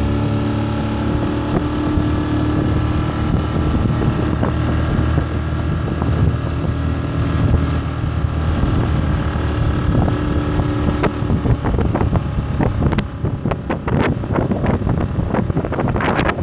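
Outboard motor of a small metal boat running steadily, then cutting off about eleven seconds in. After that, wind buffets the microphone in irregular gusts.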